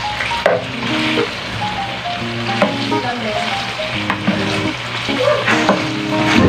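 Bite-sized pork pieces sizzling in oil and sauce in a nonstick pan while a spatula stirs them, with a few short scrapes and clicks of the spatula against the pan.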